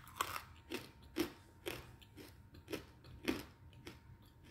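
Close-up chewing of a hard chunk of edible clay, crunching about twice a second as it breaks up in the mouth.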